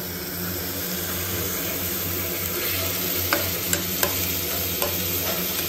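Raw mutton pieces sizzling in hot oil in a pressure cooker as a metal spatula stirs them, being sautéed before the gravy. In the second half the spatula knocks sharply against the pot a few times.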